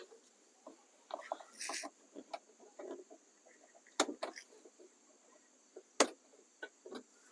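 Scattered light clicks and rustling of handling around a Jeep Wrangler, with two sharp, loud clacks about two seconds apart.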